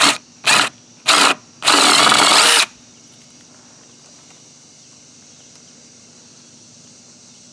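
DeWalt 20V brushless cordless drill boring into a plastic mower bumper: three short trigger pulls, then one run of about a second that stops about two and a half seconds in.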